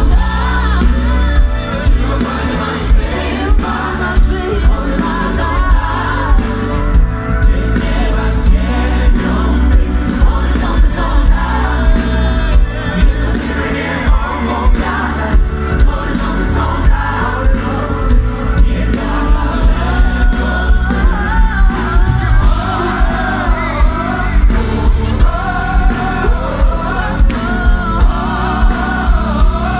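Live pop-gospel band and vocal group performing over a PA: several voices singing a melody together over a steady drum beat and heavy bass.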